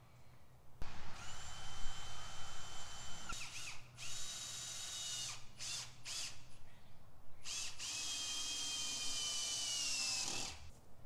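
Cordless drill driving screws into 2x4 door framing, running in spells: a run of about two and a half seconds, a shorter one, a few quick blips, then a last run of about three seconds that slows slightly just before it stops.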